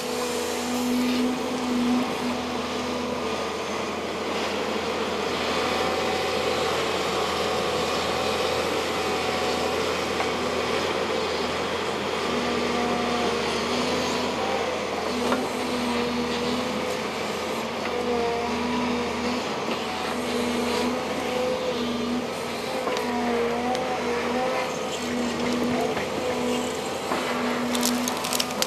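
Volvo excavator running steadily as it works. A pitched whine cuts in and out over and over in the second half.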